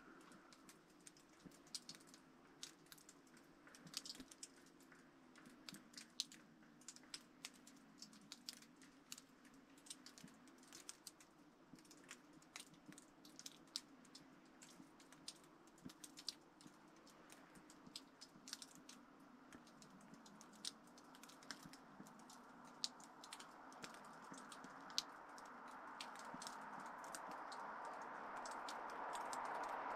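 Liquid-fuel camping stove warming up with a small yellow flame, giving off faint irregular crackles and ticks. From a little past halfway, a hiss rises steadily louder as the burner comes up to pressure.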